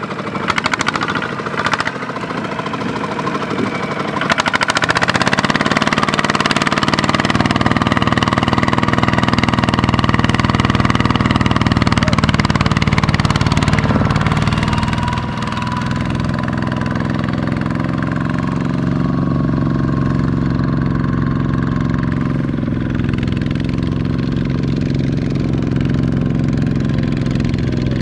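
Two-wheel walking tractor's single-cylinder diesel engine running under heavy load, pulling a loaded rice trailer through deep mud with its wheels churning. It picks up revs about four seconds in and runs hard, eases briefly around halfway, then keeps running steadily.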